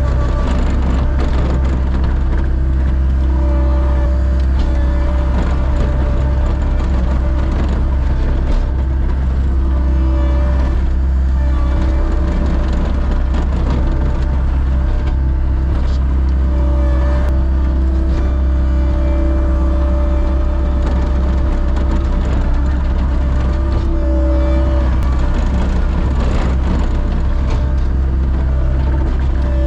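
Background music with sustained notes that change every few seconds, over a steady low engine rumble.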